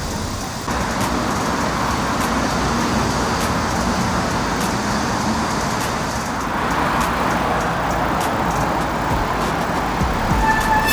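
Road traffic noise, a steady wash of passing cars, heard from a bicycle ride along city streets. A steady tone comes in near the end.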